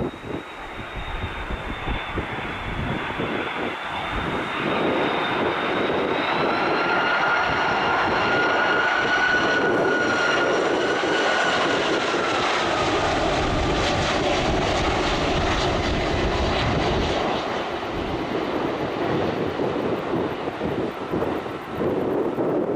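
Airbus A330 airliner's twin jet engines passing on landing approach: a rushing roar with a high whine that swells to its loudest midway, drops in pitch as the plane goes by and then eases off.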